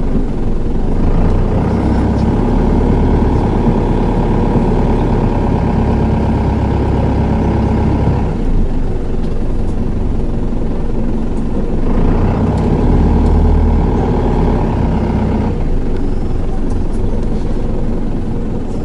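Hino Liesse II (SDG-XZB50M) minibus's diesel engine and five-speed automatic running under way, a steady engine hum. It pulls harder for stretches and eases off about eight seconds in and again near fifteen seconds.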